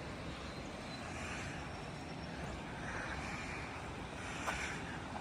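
Steady rushing of the Athabasca River running high in flood.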